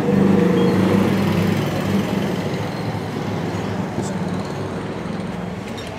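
Sewing machine running steadily at speed, stitching stretchy jersey fabric, with an even hum that slowly fades toward the end.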